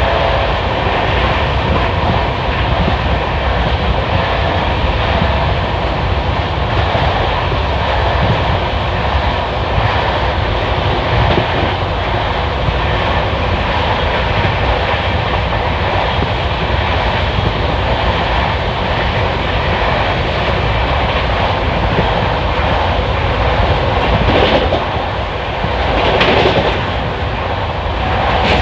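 Indian Railways passenger train running at speed, heard from on board: a steady rumble and rattle of wheels on the track, with a brief swell in loudness near the end.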